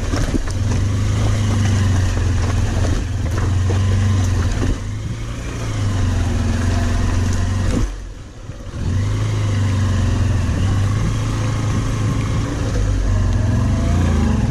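Motorcycle engine running with a steady low drone and a few knocks in the first few seconds. The sound drops briefly just past halfway, then comes back up.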